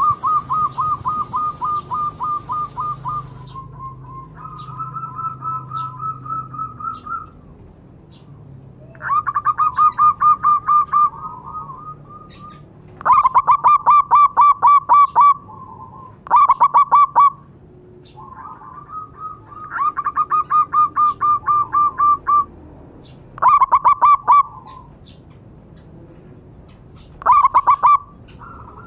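Zebra doves (perkutut) cooing: rapid trills of short staccato coos in bursts of one to four seconds with pauses between. At least two birds call back and forth at slightly different pitches, and the loudest bursts come in the middle and near the end.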